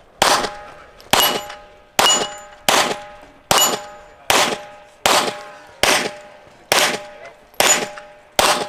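A string of eleven pistol shots, evenly paced about one every 0.8 seconds, most followed by the ringing clang of a steel target plate being hit.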